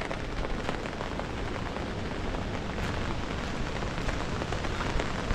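Steady rain falling, an even hiss dotted with small drop ticks.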